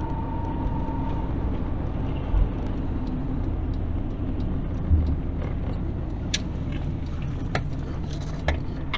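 Car interior while driving: a steady low rumble of engine and road noise, with two low thuds about two and a half and five seconds in and a few light clicks in the second half.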